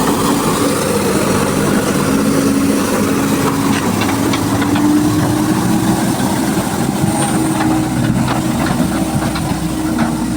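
A vehicle or machine engine running steadily, its pitch rising slightly a few seconds in, with scattered knocks and clatter over it.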